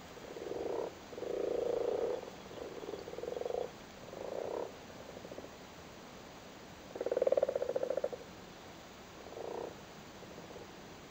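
Male common frogs croaking from the water of a flooded cattle grid: their breeding calls at spawning time. About six low, rapidly pulsed croaks, each half a second to a second long, come at uneven intervals, with a lull of about two seconds in the middle.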